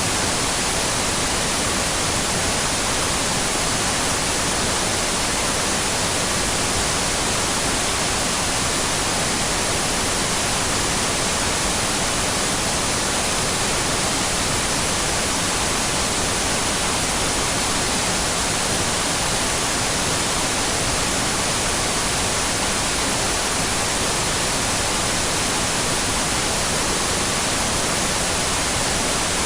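Television static: a steady, unbroken hiss that does not change, brighter and stronger in the high end.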